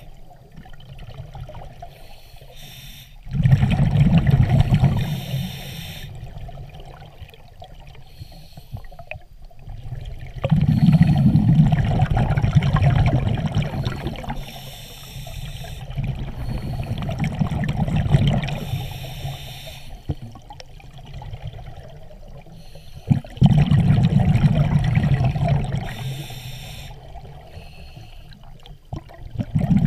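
Scuba regulator breathing underwater: a high hiss on each inhale, then a rumbling rush of exhaled bubbles, in a slow cycle of about four breaths.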